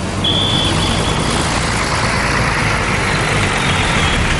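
A large bus going past close by: its engine runs with a steady low hum under loud rushing road noise. A brief high thin tone sounds about a quarter-second in.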